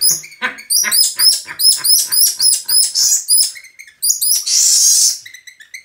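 Small pet monkey calling in a rapid series of short, high-pitched chirps, with a longer harsh screech about four seconds in: protest and warning calls at being held and bathed.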